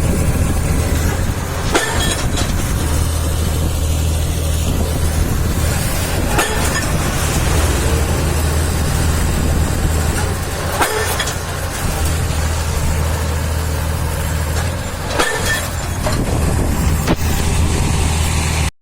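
Heavy machinery engine running steadily with a low hum, with sharp knocks about every four to five seconds.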